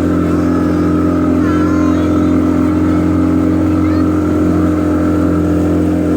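Motorboat engine running at a steady speed, a loud, even drone.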